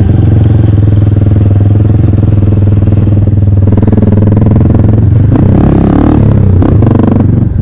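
Dirt bike engine running at low speed, heard close up from the rider's seat. Its note wavers near the end.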